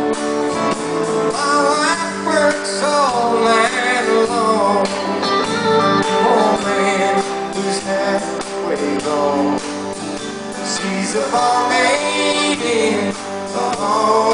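Live country-rock band playing electric guitars and drums.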